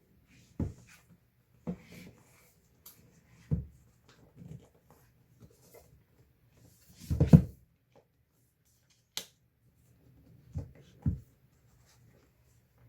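Packaging and books being handled during an unboxing: a string of soft thumps and light rustles, the loudest cluster about seven seconds in, and a sharp click a couple of seconds later.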